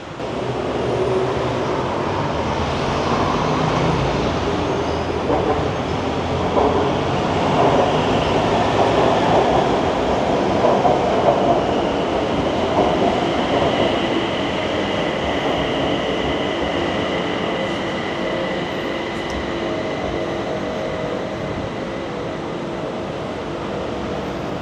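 BTS Skytrain electric train running on the rails, a steady broad rolling noise, with a steady high whine from its drive coming in about halfway.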